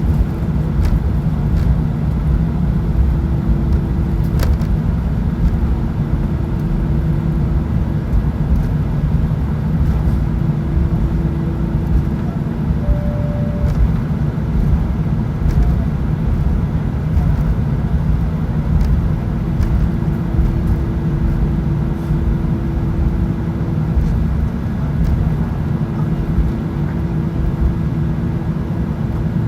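Airbus A319 cabin noise while taxiing: a steady low drone of the engines at taxi power with a rumble underneath, a hum that comes and goes, and a few faint knocks.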